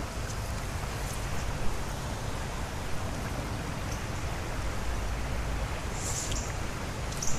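Steady rushing noise of flowing creek water, with a few faint short ticks.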